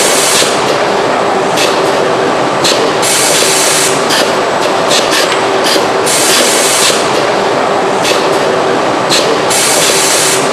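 Robotic spot-welding cell in a car-body shop running: a loud, steady mechanical din, broken by repeated bursts of hissing half a second to a second long, over a faint steady hum.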